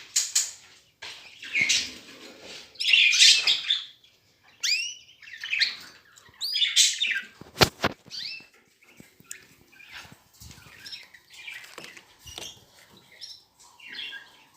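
Canaries chirping in short, high calls, mixed with scratchy rustling bursts and one sharp click about eight seconds in.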